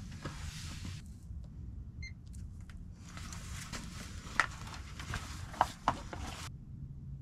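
Garmin Striker fish finder being handled: cloth-and-plastic rustling with a few sharp clicks, and a short electronic beep from the unit about two seconds in.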